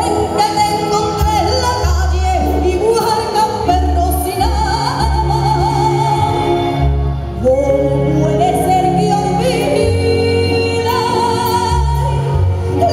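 A woman singing live into a microphone, holding long notes with a wide vibrato, over an amplified band of keyboard, electric guitar and a steady bass line.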